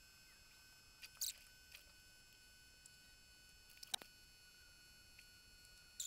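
Near silence: a faint steady high whine in the background, with a few soft ticks and one sharper click about four seconds in.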